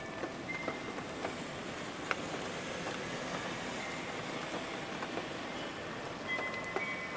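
Steady rain falling, with scattered drops ticking sharply. A wind chime rings a few clear notes just after the start and again near the end.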